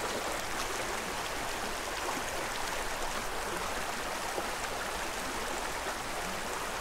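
Small creek running: a steady, even rush of flowing water.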